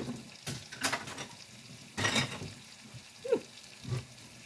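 Scattered knocks and scrapes of kitchen utensils against a cast iron skillet, with a short falling squeak a little after three seconds in, over a faint sizzle of food frying.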